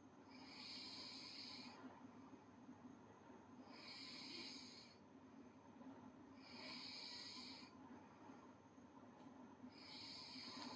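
A girl snoring faintly in her sleep: four slow, airy breaths about three seconds apart.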